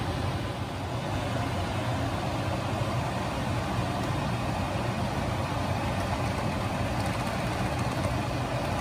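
Steady machine hum with an even rushing noise over it, unchanging in level.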